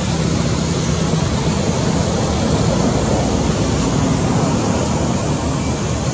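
Steady rushing background noise with a low rumble, unbroken throughout.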